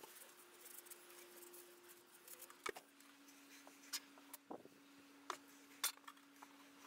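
Faint, sparse clicks and taps from small objects being handled on a workbench, over a low steady hum that drops slightly in pitch about a third of the way in.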